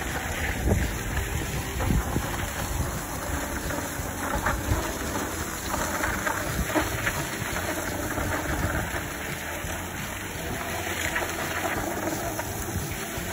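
Skis hissing and scraping over packed snow at speed, with wind rushing over the microphone.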